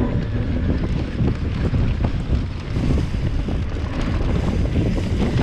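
Wind buffeting a handlebar camera's microphone over the steady rumble and rattle of a mountain bike riding across a bumpy grass course, with frequent small knocks.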